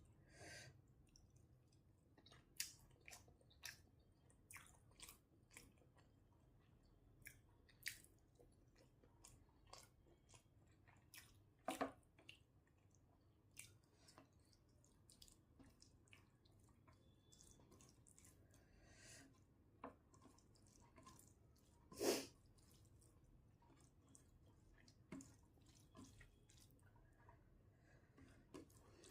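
Faint chewing and mouth sounds of a person eating a meal, with many small scattered clicks and smacks and two louder ones, near the middle and about three quarters of the way through.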